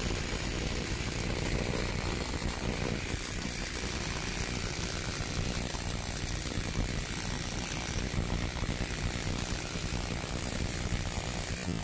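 Tesla coil running, its arcs crackling inside an upturned glass mason jar set over the breakout point: a steady, even buzz.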